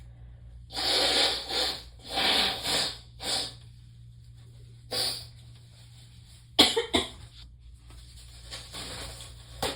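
A woman breathing in short, heavy gasps while hitching on the edge of a sneeze brought on by Chhinkni sneezing powder, with one sudden sharp sneeze about six and a half seconds in, the loudest sound.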